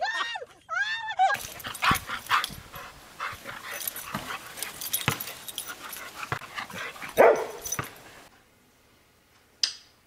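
A dog giving short cries amid scattered knocks and scuffs, with one louder cry about seven seconds in. The sound then drops away to near silence, broken by a single click near the end.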